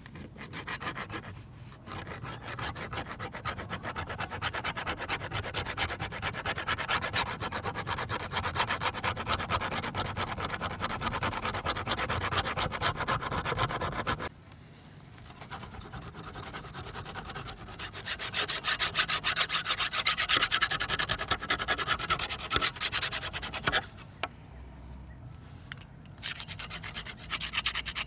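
Rapid back-and-forth abrasive rubbing on a kitchen knife blade during rust removal, as when sanding or scouring it by hand. It pauses briefly about halfway through and again near the end.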